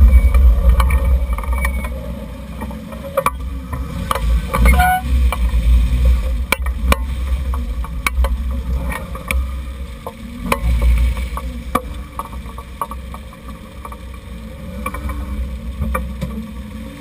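Road and wind noise at a camera fixed under the front suspension of a lifted 1994 Jeep Cherokee XJ driving on the road: a heavy, uneven low rumble, loudest at the start. Scattered sharp clicks and knocks come through it, with a brief squeak about five seconds in.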